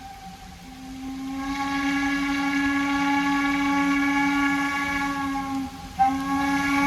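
Narrow-gauge steam locomotive's whistle blowing a long, steady blast several tones deep, swelling about a second in, then a short break near the end before it sounds again.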